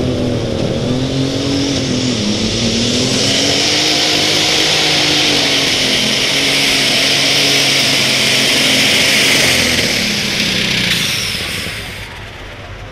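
Super stock pulling tractor's turbocharged diesel engine running hard under load on a pull, its pitch wavering, with a loud high-pitched turbo whine and hiss building over several seconds. The sound drops off sharply near the end.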